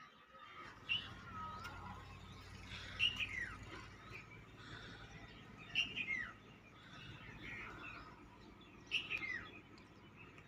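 Bird calls: a short, sharp chirp that falls in pitch, repeated about every three seconds, over fainter background chirping.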